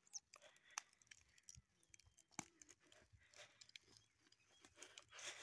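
Faint footsteps crunching and rustling through dry grass, heard as scattered irregular crackles.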